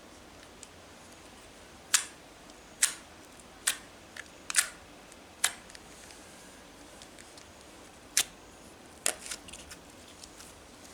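A series of about eight sharp, separate clicks and snaps at irregular intervals over a faint background hiss.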